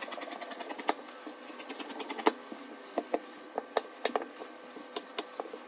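Scissors cutting through fabric: a series of irregular sharp snips.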